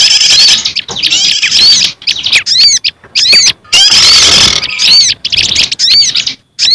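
Loud bird-lure recording of small garden songbirds, a mix the uploader builds from prenjak (prinia), ciblek gunung, sirtu and sogok ontong calls: quick runs of arched, rising-and-falling whistled notes alternating with three harsh chattering phrases.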